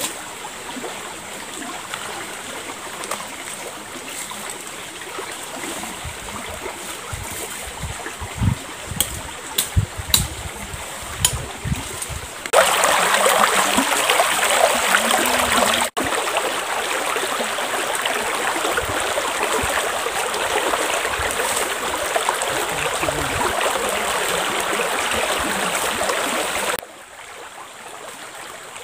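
Shallow river flowing steadily. The rush of water jumps much louder about twelve seconds in and drops back quieter near the end. In the first half there are a few scattered knocks and thuds.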